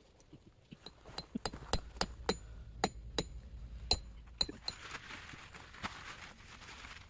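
Metal tent pegs being hammered into the ground: about a dozen sharp, ringing metallic strikes at an uneven pace, followed by a soft rustle over the last couple of seconds.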